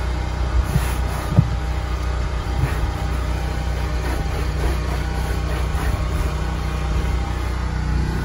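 A steady low engine drone, with a single light knock about a second and a half in.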